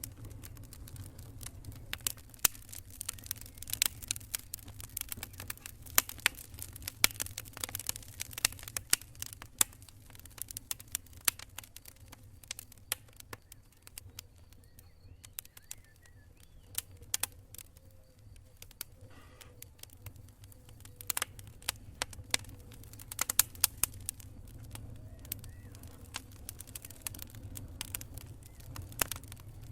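Wood campfire crackling, with sharp irregular pops and snaps over a steady low rumble; the pops thin out for a few seconds around the middle, then pick up again.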